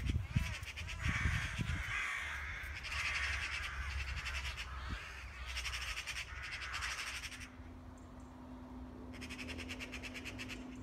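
Eurasian magpie alarm chatter: harsh rapid rattles in repeated bursts, growing fainter in the second half, raised at a sparrowhawk catching a magpie.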